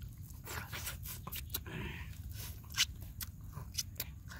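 Close-up eating sounds: a man biting and chewing crunchy food, with a series of sharp crunching clicks, over a steady low rumble.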